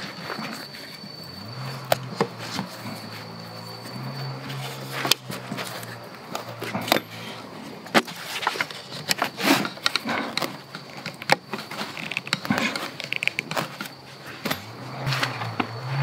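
Wooden branch frame and steel saw blade of a homemade bushcraft bow saw knocking and clicking irregularly as the blade is fitted and the frame is flexed to tension it.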